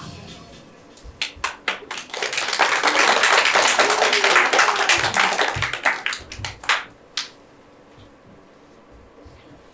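Audience applause: a few scattered claps about a second in build into full, dense clapping, which thins out and stops about seven seconds in.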